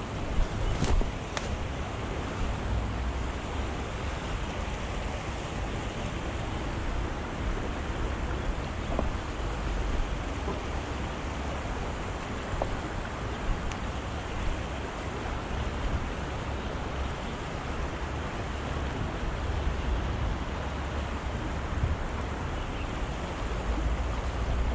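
Shallow rocky stream running over stones, a steady rushing hiss, with wind buffeting the microphone in low gusts. Two short clicks about a second in.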